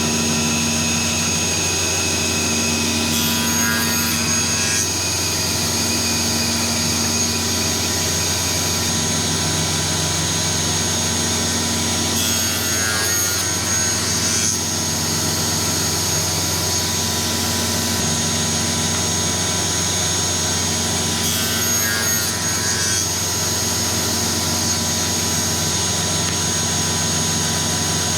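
Power saw motor running steadily for woodworking cuts, with three brief changes in the noise about nine seconds apart as stock is cut.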